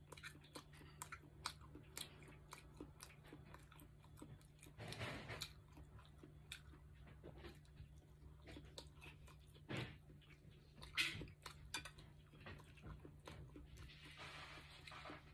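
Close-up chewing and biting of firm, crunchy handmade chicken meatballs, heard as many small wet clicks of the mouth, with a few louder bites at about 5, 10 and 11 seconds in.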